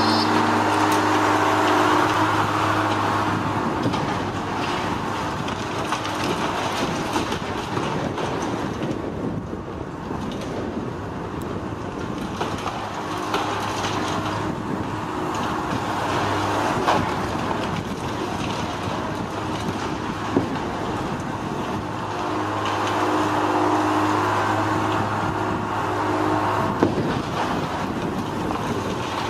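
Diesel engine of heavy demolition machinery running steadily, louder near the start and again a little after two-thirds of the way through. A few sharp knocks come through, which fit concrete breaking.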